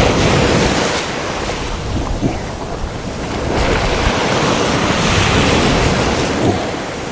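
Surf breaking and washing on the beach, with wind buffeting the microphone; the wash swells up again about four seconds in.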